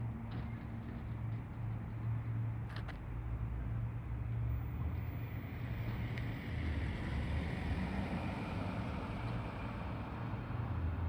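Garbage truck's diesel engine running steadily, with a brief sharp knock about three seconds in and a broad hissing noise swelling through the middle.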